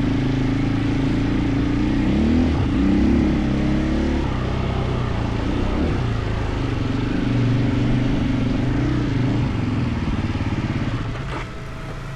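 KTM 450 EXC enduro motorcycle engine running while riding off-road, its revs rising and falling with the throttle. The engine eases off near the end.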